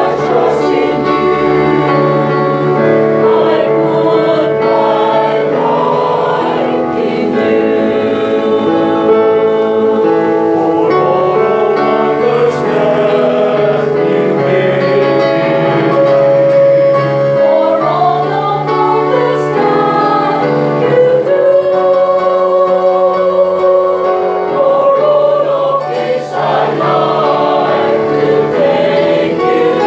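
A choir singing a slow church song in parts, accompanied by an electronic keyboard.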